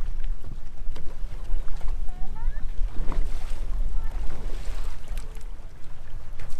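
Wind buffeting the microphone in a steady low rumble, over choppy lake water slapping against a boat.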